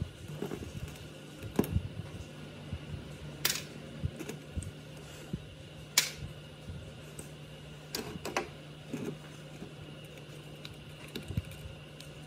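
Scattered sharp clicks and light knocks of parts and tools being handled at a workbench, the sharpest about three and a half seconds in and again about six seconds in, over a steady low hum.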